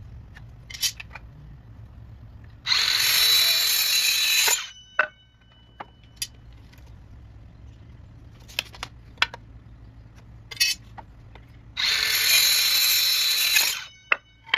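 Compact cordless circular saw cutting through 2x4 lumber twice, about two seconds each, a few seconds in and again near the end, the blade whining down after each cut. Light clicks and taps of a tape measure and pencil come between the cuts.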